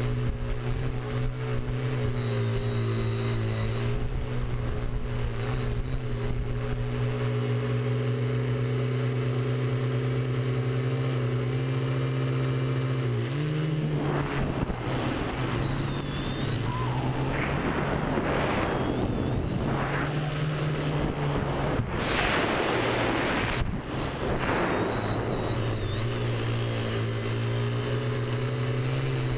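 TBS Discovery Pro quadcopter's brushless motors and propellers whining steadily, heard from the onboard camera. Around the middle the pitch rises a little and a gusty rushing noise comes and goes over the motor hum for some ten seconds before the steady whine settles again.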